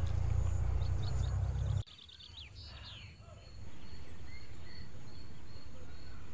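Outdoor ambience: a steady low rumble that cuts off abruptly about two seconds in, then a few quick bird chirps, and a faint high chirp repeating steadily through the rest.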